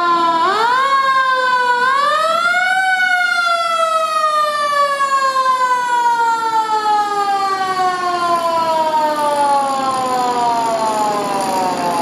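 A fire engine's vintage Federal Model 28 mechanical siren winds up in a few short rising pulls to its peak about three seconds in. It then coasts down in one long, slowly falling wail.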